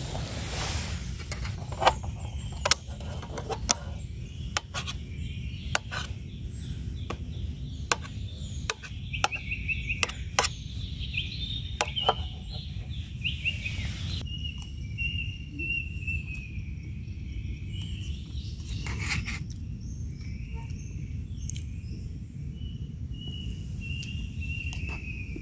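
A metal spoon clinks and scrapes against a small metal camping pot in sharp, irregular clicks, mostly in the first half. A steady low rumble and repeated high chirping trills run underneath.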